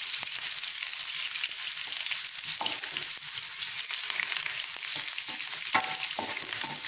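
Sliced onion, garlic and curry leaves sizzling steadily in hot oil in a kadai while being stirred, with a couple of sharp utensil knocks against the pan, one about two and a half seconds in and one near the end.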